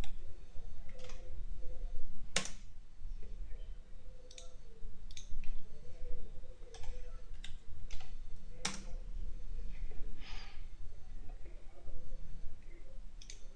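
Irregular clicks of a computer mouse and keyboard, the two loudest about two and a half and nine seconds in, over a steady low hum.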